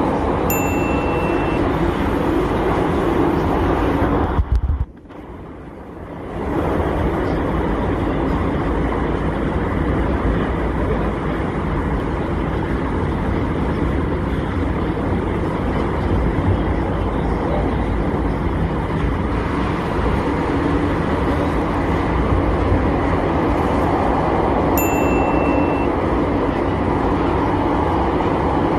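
Metro train carriage in motion: a steady, loud rumble and rattle of the running train, with a sudden brief drop in level about five seconds in. A short high tone sounds once near the start and again near the end.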